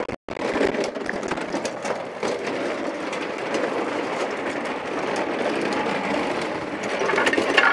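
Lawnmower being wheeled along hard ground: a steady rolling rumble of its wheels with scattered clicks and rattles, growing a little louder near the end.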